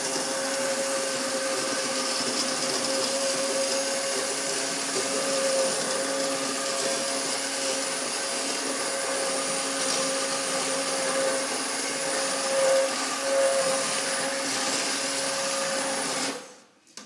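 Electric hand mixer running steadily in a pot of cooked blueberry barbecue sauce, blending it smooth. Its motor holds one even pitch and cuts off suddenly about half a second before the end.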